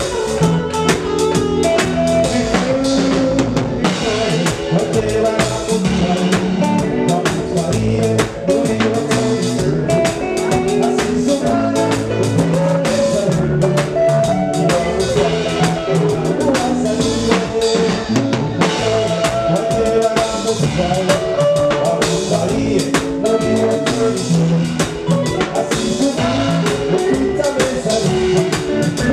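Live band music: a drum kit keeping a steady beat under electric bass and keyboard, with a man singing lead into the microphone.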